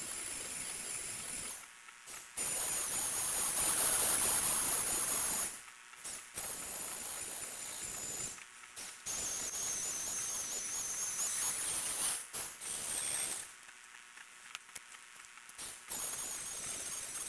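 LEGO Mindstorms NXT servo motors driving plastic gears. They run in spurts of a few seconds with short pauses between, giving a high whine that wavers in pitch over a whirring gear noise.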